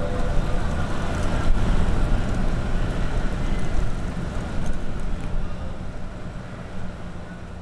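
Steady low vehicle rumble with a light hiss, slowly fading out over the last few seconds.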